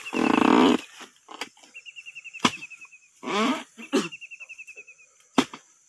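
Two sharp knocks about three seconds apart as a long-handled harvesting chisel strikes into an oil palm fruit bunch's stalk. A short loud vocal sound comes near the start, and a rapid high trill repeats on and off in the background.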